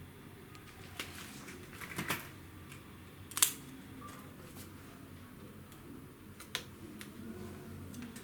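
A few sharp clicks and taps as hands handle the RAM modules inside an opened Dell G5 5590 laptop, the loudest about three and a half seconds in, over faint room noise.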